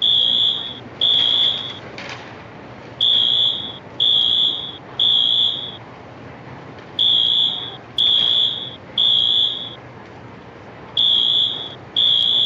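Building fire alarm horns sounding a loud, high-pitched beep in threes: three beeps a second apart, then a pause, repeating every four seconds. This is the temporal-three pattern that signals building evacuation.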